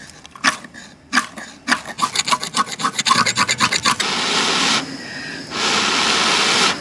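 Ferrocerium fire steel scraped with a striker to throw sparks onto charcoal. It starts with single sharp scrapes, then a fast run of strokes, then a continuous rasping hiss from about four seconds in, broken briefly near five seconds.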